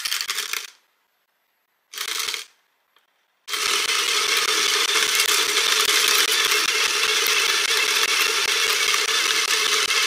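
Comandante C40 hand grinder driven by an Aikamo motor base, its burrs crushing coffee beans: two brief bursts, then from about three and a half seconds in a steady, dense crackling grind over the motor's hum.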